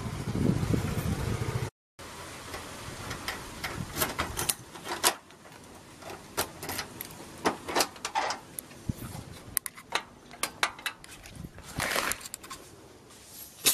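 About two seconds of loud street noise, then, after a cut, a bunch of keys jangling and clicking as a key is worked in a door lock and the door is opened, with many sharp metallic clicks and jingles.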